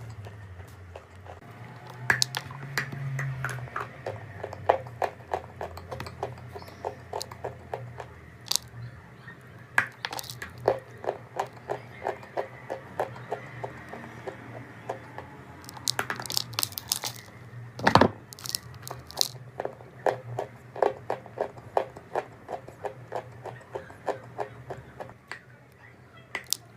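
Close-up chewing of crunchy chalk: a steady run of crisp crunches, several a second, with a few louder bites. The loudest sharp crack comes about eighteen seconds in.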